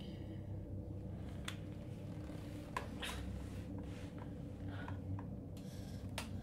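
Quiet indoor room tone with a steady low hum and a few small soft clicks and rustles.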